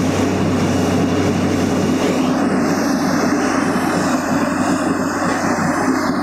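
Borewell drilling rig running, a loud steady drone that does not let up.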